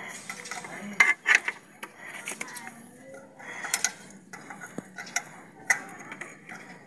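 Irregular sharp metallic clicks and clinks of a socket wrench and hands working against the engine's valve cover while a new ignition coil is fastened in place. The loudest clinks come about a second in.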